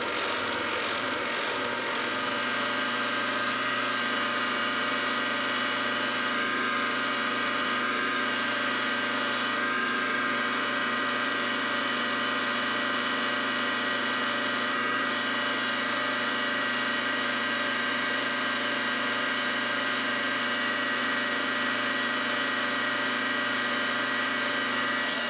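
Milling machine running steadily under power feed while a fly cutter takes a facing pass across a steel jaw blank: an even machine hum with a steady whine.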